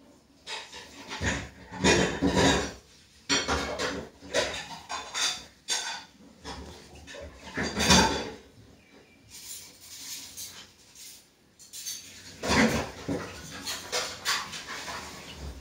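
Syrian hamster crunching and nibbling dry rolled oat flakes up close: quick, sharp crackling crunches in bunches, with quieter pauses between them.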